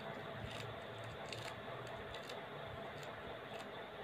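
A kitchen knife cutting finely through a handful of leafy greens held in the hand: faint, irregular crisp snicks, about seven of them, over a low steady hum.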